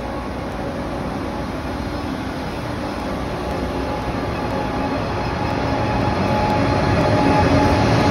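KTX-Sancheon high-speed train pulling out along the platform: a steady rumbling run with a faint steady whine, growing louder over the last few seconds as its rear power car comes near.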